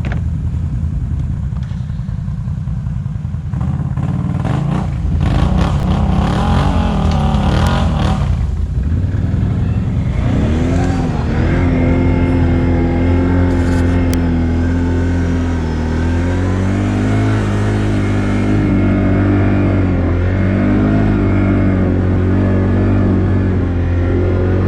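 ATV engine running while riding off-road, its pitch rising and falling as the throttle is worked in the first half, then pulling more steadily with small changes in revs.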